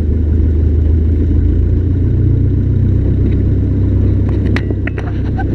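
Cessna 152's four-cylinder Lycoming piston engine running steadily, its note shifting slightly about a second and a half in. A few short sharp clicks sound near the end.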